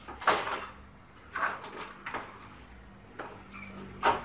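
Knocks and scrapes of an electric rice cooker's plastic bottom cover and metal body being handled on a wooden bench: several in a few seconds, the loudest near the start and near the end.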